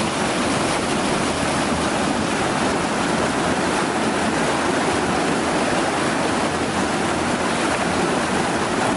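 Wastewater rushing out of a sequencing batch reactor's outlet in discharge mode, pouring down a concrete chute and splashing into the channel below. A steady, even rush of water.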